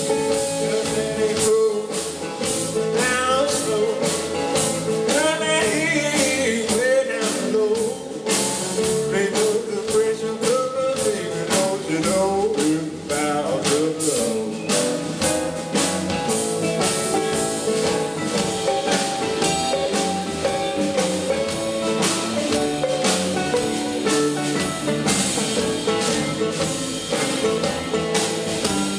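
Live blues music: an archtop guitar played over a drum kit keeping time with cymbal strokes, with a man singing.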